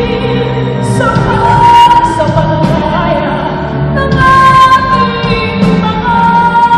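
Female vocalist singing a ballad live over band accompaniment, holding long, high sustained notes.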